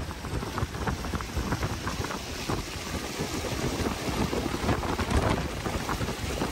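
Storm-swollen creek runoff rushing steadily through a breach in a sand berm, pouring in a foaming cascade over a small drop in the sand.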